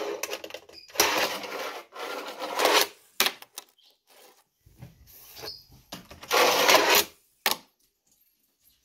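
Fingerboard's small wheels rolling on a desktop ramp in a few rough runs of about a second each, with sharp clacks of the board striking the ramp or desk.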